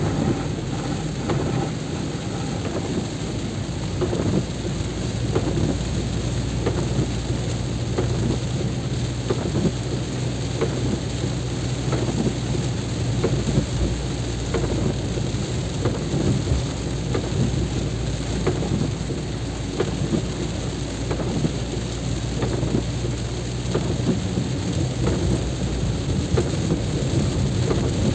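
Heavy rain falling steadily, with many sharp drop hits close to the microphone, over a steady low vehicle hum.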